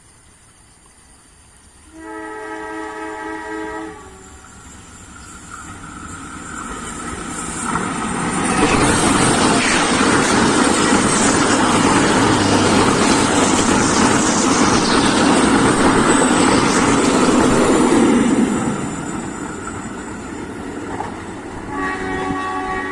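Indonesian diesel passenger train's multi-tone horn sounding one blast of about two seconds. The train then passes close by, its wheel and engine noise building to a loud, steady rush for about ten seconds before fading. The horn starts again near the end.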